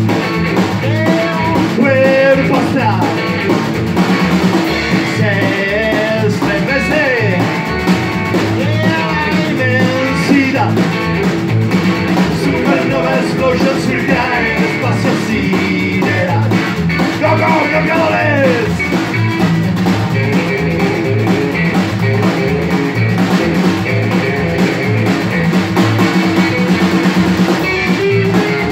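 Live rock and roll band playing an instrumental stretch: electric guitar leads with bent, sliding notes over upright double bass and a small standing drum kit keeping a steady beat.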